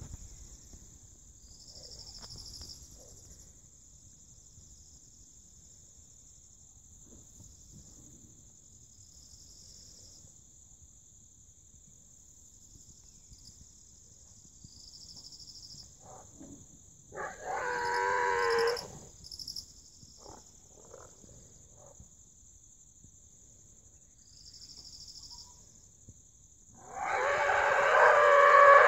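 A wild boar pinned by a leopard squealing in distress twice: a call of about a second and a half around the middle, and a louder, longer one near the end. A steady high insect drone runs underneath.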